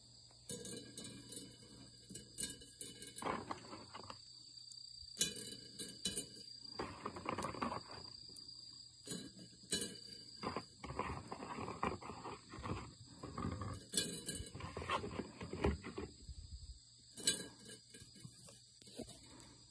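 A steady high insect trill, with close rustling and clicking bursts as chestnuts are handled and set onto the wire mesh of a charcoal grill; the handling stops a few seconds before the end.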